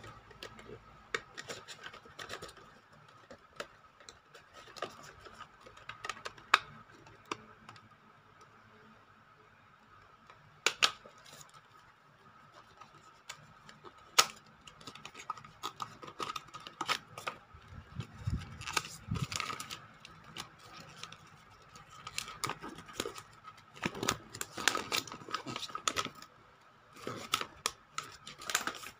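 Hands unboxing a Gan 356M speed cube and its plastic-and-cardboard packaging: irregular clicks, taps and rustles, busier in the second half, with a couple of soft low thuds a little past the middle.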